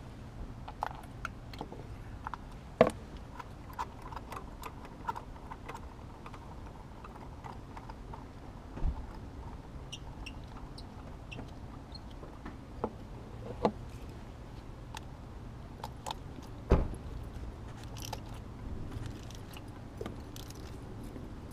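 Metal hand tools (ratchet, extension bar and spark plug socket) clinking and clicking as they are handled on the engine, in scattered small clicks with a sharp clink about three seconds in and a couple of duller knocks later. A low steady hum runs underneath.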